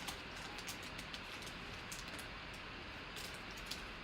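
Faint ticks and soft rustles of trading cards being handled and flicked through, over a steady low hiss. The ticks are scattered, a few at a time, mostly near the start and again in the second half.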